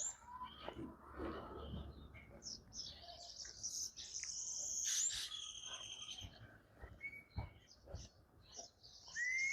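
Birds singing: repeated high whistled and trilled phrases, strongest around the middle, with a clear rising whistle near the end.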